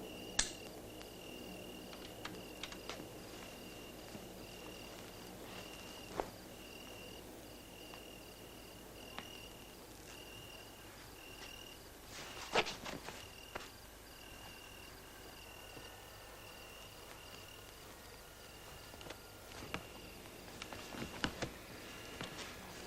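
A cricket chirping faintly in steady repeated trills at one high pitch, with a few soft knocks and rustles about halfway through and again near the end.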